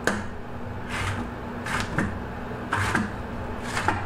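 Fish fleshing tool scraping meat and tissue off the inside of a largemouth bass skin, in short rasping strokes about once a second.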